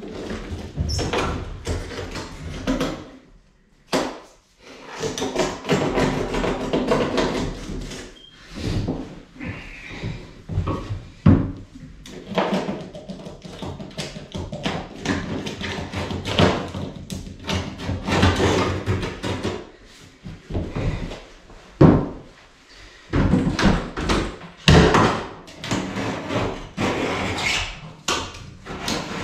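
Irregular knocks, bumps and scraping from a corner bath being worked loose along its silicone-sealed edge against the tiled wall. Some sharp knocks stand out, about 4 s in, 11 s in, 22 s in and 25 s in.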